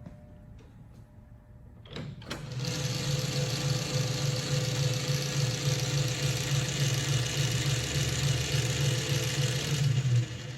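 South Bend 10-inch Model A metal lathe switched on with a click about two seconds in, its three-phase motor and flat-belt drive running steadily with a deep hum, then shut off near the end.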